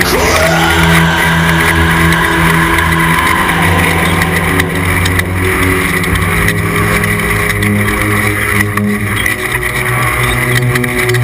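Off-road race truck's engine running hard, heard from on board. The engine note steps up and down a few times with throttle and gear changes, and there are a few sharp knocks from the truck over rough ground.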